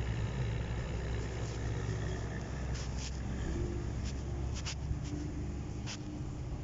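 A steady low rumble, with several short sharp clicks in the second half.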